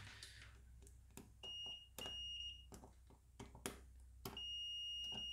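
Multimeter continuity beeper sounding a steady high beep in three stretches, briefly about one and a half seconds in, again around two seconds in, and from just past four seconds on, with sharp clicks of the metal probes on the trigger switch's terminals. Each beep signals a closed path through the switch contacts; the breaks come where paint on the terminals spoils the probes' contact.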